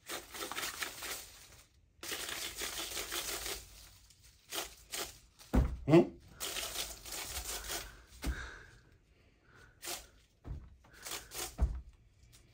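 Paper mouth coil being pulled from the mouth hand over hand: the paper streamer rustles and crinkles in runs of a second or two, with a couple of short knocks.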